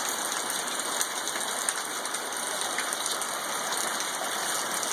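Rain falling: a steady hiss with scattered faint drop ticks.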